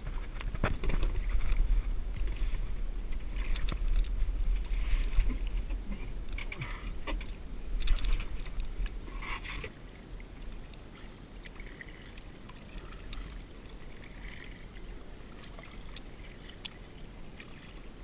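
Kayak paddle strokes, the blades dipping and splashing in the water one after another over a low steady rumble, going quieter after about ten seconds.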